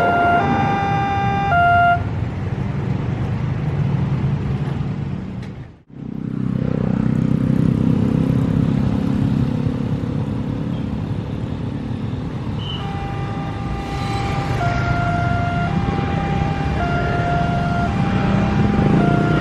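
Automatic level-crossing warning siren sounding an electronic alarm that alternates between two tones about once a second, stopping about two seconds in. Road traffic engines rumble in the gap, and about thirteen seconds in the two-tone siren starts up again.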